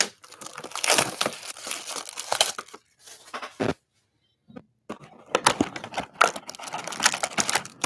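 Plastic shrink wrap crinkling and tearing as a sealed box of trading cards is opened. It comes in two spells, with a single knock and a short lull between them.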